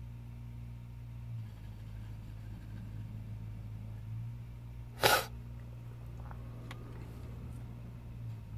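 A person sneezes once, a short loud burst about five seconds in, over a low steady hum.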